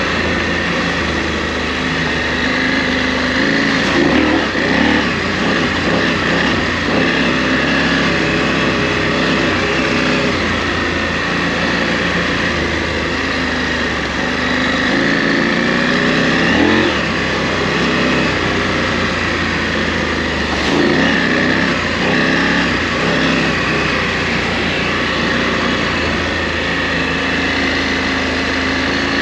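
KTM 890 Adventure R motorcycle's parallel-twin engine under way off-road, its pitch climbing and dropping back several times as the throttle is opened and closed.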